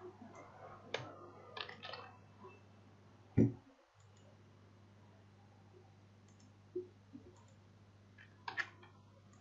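Scattered computer mouse clicks: a cluster about one to two seconds in and another near the end, with a louder low thump about three and a half seconds in. A faint steady hum lies underneath.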